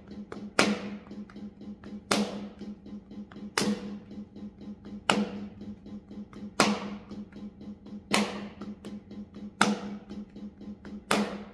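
A paradiddle-diddle rudiment (left, right, left, left, right, right) played with bare hands slapping the thighs, about four strokes a second. A loud accented left-hand stroke falls every second and a half, and the softer strokes fall between. A steady low hum runs underneath.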